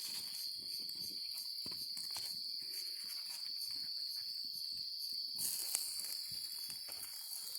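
Food in an open can sizzling and popping as it heats over a small campfire, with short crackles throughout; the hiss grows louder about five seconds in. A steady, high chirring of insects runs under it.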